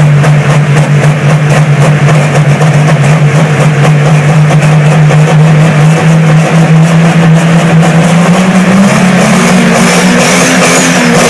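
Big diesel engines of John Deere pulling tractors running loud and steady just after a cold start. One engine revs up about eight seconds in, its pitch rising and then falling back near the end.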